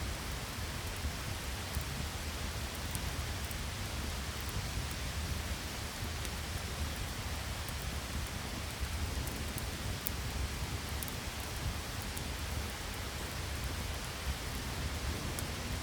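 Steady rain with a continuous low rumble underneath and scattered faint ticks.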